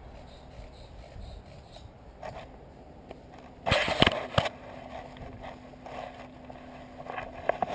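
Footsteps and scuffing on dry leaves and dirt as a player moves through a trench, with a loud scraping clatter of gear and a few sharp knocks about four seconds in, and a couple more knocks near the end.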